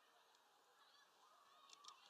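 Faint taps of a grey-headed woodpecker's bill pecking at a suet ball in a wire spiral holder, a quick run of three sharp taps near the end, over faint bird calls in the background.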